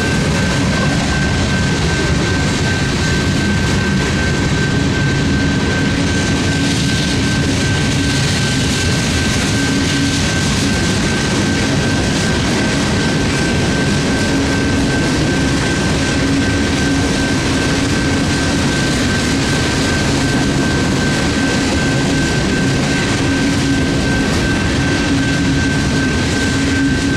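Freight cars of a long Union Pacific freight train rolling steadily past a grade crossing: a loud, continuous rumble of wheels on rail, with a steady high-pitched tone running through it.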